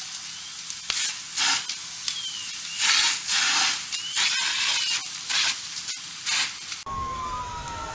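Burning house fire crackling and hissing in irregular loud surges. About seven seconds in it cuts abruptly to a wailing siren falling in pitch over a low rumble.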